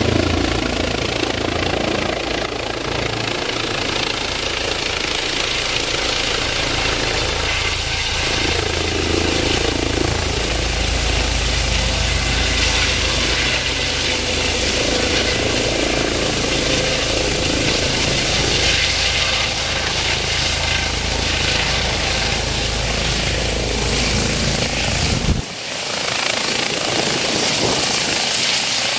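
Eurocopter EC135 helicopter running close by: steady rotor and turbine noise with a thin, high, steady whine over it. About 25 seconds in, the deep low end drops out abruptly while the rest of the noise carries on.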